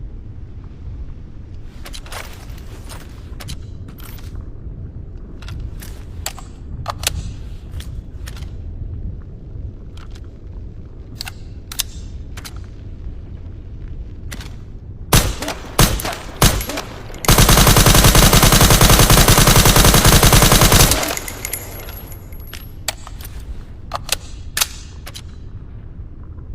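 Suppressed SIG Sauer MCX Virtus rifle with a Midwest Industries suppressor: a few single shots, then one long automatic burst of about four seconds, with scattered sharp mechanical clicks before and after.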